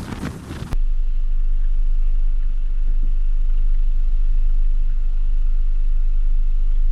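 Motorboat engine idling: a loud, steady low rumble.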